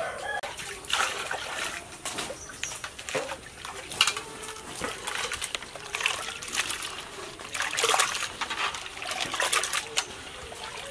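Hands swishing and rubbing roasted moong dal in a steel pot of water to wash it, with irregular splashes and sloshes.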